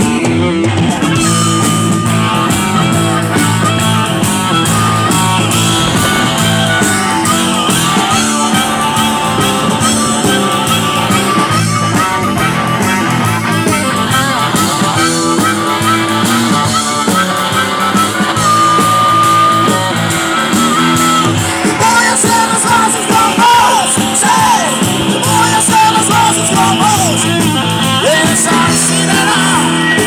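Live blues-rock band playing an instrumental break: a harmonica plays a long held lead line over electric guitar, bass and drums. In the last third an electric guitar takes the lead with bent notes.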